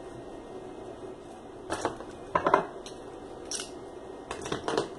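A few short clicks and light knocks from hands handling small electronic parts and the dip meter on the bench. They come singly and in small groups, with a cluster near the end.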